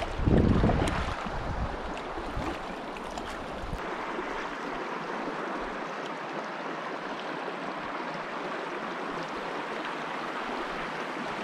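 A shallow mountain creek running steadily over rocks and gravel, with a louder low rush in the first second.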